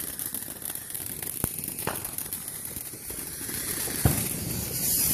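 Ground fountain firework spraying sparks with a steady hiss and scattered crackling pops, a sharper pop about four seconds in and the hiss growing louder near the end.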